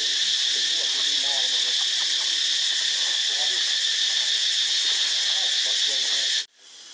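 A steady, high-pitched insect drone from the forest, with short, lower, wavering calls repeating beneath it. The drone cuts off suddenly near the end.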